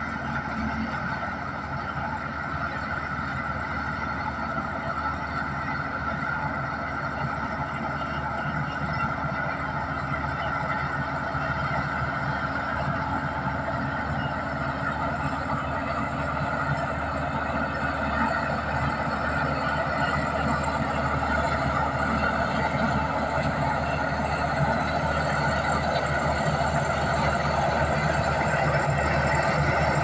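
Komatsu D61EX crawler bulldozer's diesel engine running steadily under load while it pushes a pile of earth, together with the noise of its tracks. It grows louder toward the end as the machine comes closer.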